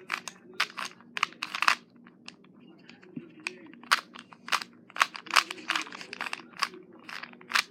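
Plastic 3x3 Rubik's cube being turned by hand, its layers clicking and clacking in quick irregular runs of sharp clicks.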